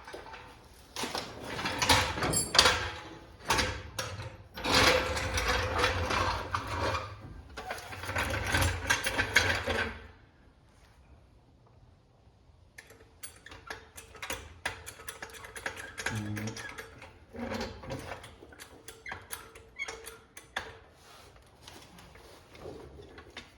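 A metal floor jack being moved into place with loud rattling and clattering for several seconds, then, after a short pause, a long run of light mechanical clicks as it is worked under the car's lower control arm.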